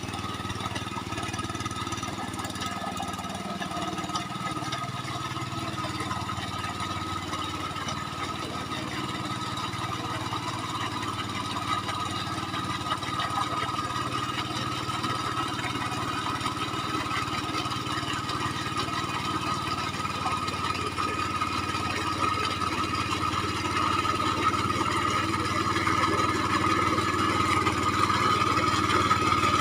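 Mini tractor engine running steadily, gradually getting louder toward the end.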